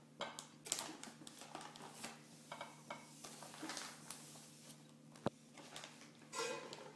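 Plastic bag of frozen chicken tenders rustling and crinkling in irregular bursts as hands reach into it, with one sharp click about five seconds in.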